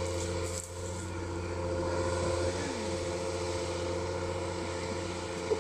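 John Deere 7830 tractor's six-cylinder diesel engine running steadily under load while it pulls a five-shank ripper through dry soil.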